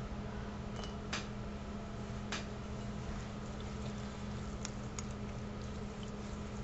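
Fingertips rubbing wet, foaming facial cleanser over the skin: faint squishing with a few soft clicks, over a steady low hum.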